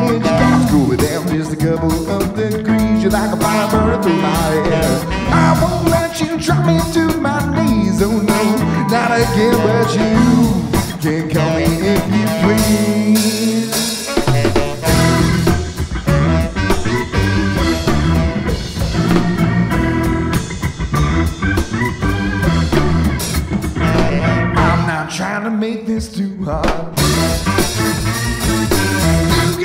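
Live band playing an instrumental passage on saxophone, electric guitar, electric bass and drum kit, with a ska-like groove. The low end drops out for a couple of seconds near the end.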